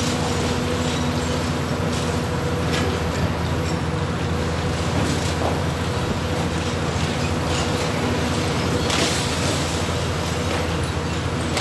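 Hitachi Zaxis 350 high-reach demolition excavator's diesel engine and hydraulics running steadily under load, a low drone with a steady whine, as its crusher jaws bite into the concrete. Occasional sharp cracks and clatter of breaking concrete and falling debris, loudest about nine seconds in.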